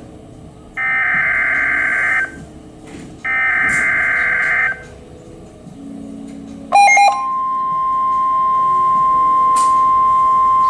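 Emergency Alert System tones on NOAA Weather Radio. First come the second and third bursts of the SAME digital header, each a buzzy warbling data burst about a second and a half long, with short gaps between them. About seven seconds in, after a brief click, the steady single-pitch 1050 Hz warning alarm tone starts and holds, marking an urgent alert such as a warning.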